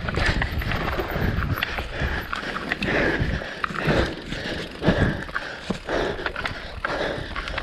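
Mountain bike descending a rough dirt trail at speed: tyres running over loose dirt and roots, with the bike clattering and rattling over bumps, and wind rumbling on the mic.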